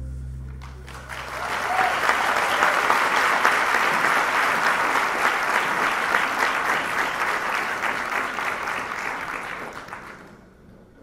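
Audience applauding, swelling about a second in as the last sustained chord of the string ensemble dies away, then thinning out and stopping shortly before the end.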